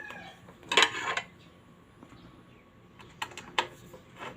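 Small metal clicks and a short rattle of screws and a screwdriver as a heat sealer's cover is screwed back on: one louder rattle about a second in, then a run of light clicks near the end.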